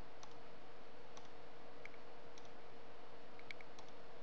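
Computer mouse clicking: several faint, short clicks at uneven intervals as items in a list are selected, over a steady background hum and hiss.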